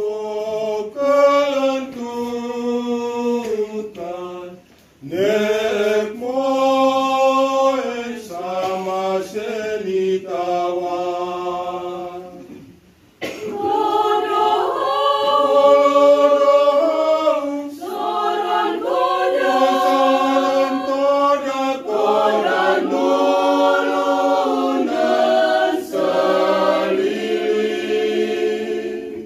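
Small mixed choir of men's and women's voices singing a church hymn unaccompanied, line by line, with short breath pauses about 5 and 13 seconds in.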